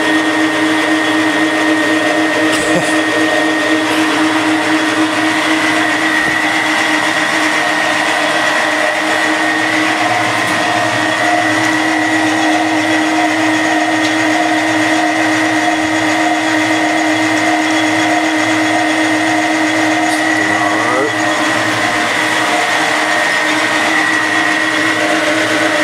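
Chester Craftsman lathe running at a constant speed, driven by a 2.6 kW three-phase induction motor fed from a variable-frequency drive: a steady machine drone with a high whine over it, unchanging in pitch.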